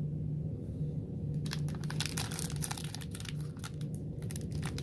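Foil wrapper of a trading-card pack being crinkled and torn open, a dense crackling that starts about a second and a half in. The packs are a little hard to open.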